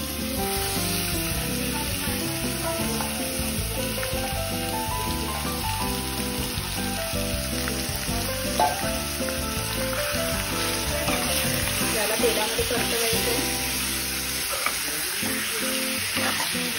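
Marinated chicken pieces sizzling loudly in hot oil in a kadhai as they are dropped in by hand, then stirred with a steel spoon near the end, over background music.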